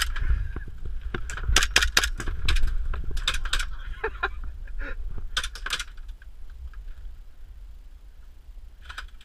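Bursts of airsoft gunfire inside a bus, with BBs clicking and clinking off the seats, panels and windows in quick clusters that die away after about six seconds.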